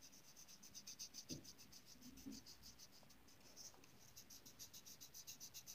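Faint scratching of a coloured pencil shading on paper, quick back-and-forth strokes several times a second, with a brief pause about three and a half seconds in.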